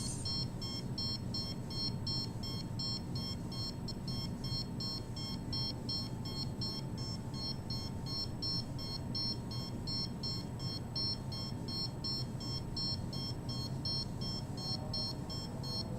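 A handheld microwave (RF) meter's alarm beeping: a rapid, steady string of short, high-pitched beeps, meaning the reading is above the meter's alarm threshold.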